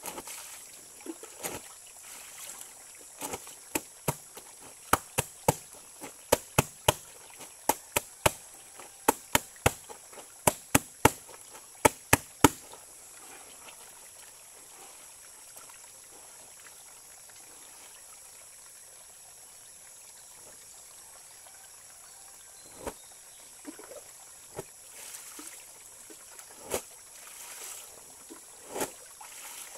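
Clothes being washed by hand on a wooden plank over a shallow stream. For the first dozen seconds or so there is a run of sharp slaps, about two a second, then the stream trickles steadily, with a few scattered splashes and knocks near the end.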